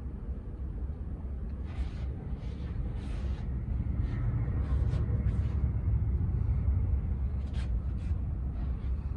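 Low rumble of a jet airliner taking off in the distance, swelling about four seconds in and easing near the end, with a few brief hisses over it.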